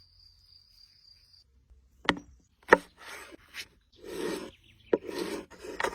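Wood being knocked and scraped: two sharp cracks about two seconds in, then stretches of scraping and rubbing with a few more knocks.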